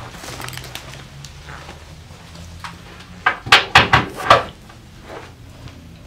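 A quick run of about five loud, sharp cracks from a chiropractic adjustment, a little past the middle, with a fainter one shortly after.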